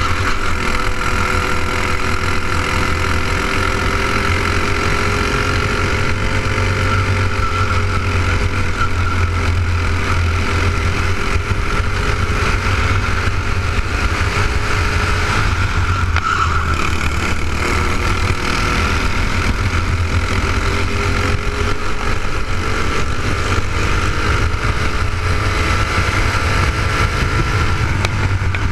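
A racing kart's single-cylinder four-stroke clone engine running hard at speed, heard from on board the kart. The engine note is steady and wavers only slightly in pitch through the corners, over a constant low rumble.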